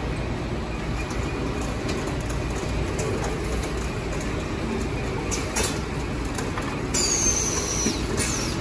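Automated pressure filling line for liquid soap and detergent running: a steady mechanical din from the filler and conveyor, with scattered clicks and knocks. About seven seconds in there is a high squeal that falls in pitch, and a shorter one just after eight seconds.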